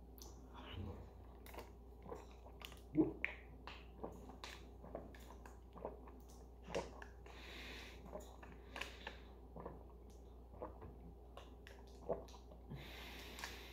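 A person drinking water from a plastic bottle: faint gulps about once a second, with light clicks and crackles of the bottle and a couple of short breaths through the nose.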